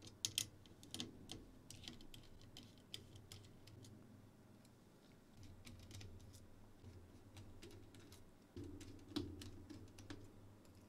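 Faint, scattered small clicks and ticks of a precision Phillips screwdriver turning out the small screws of a graphics card's backplate, with light handling of the card.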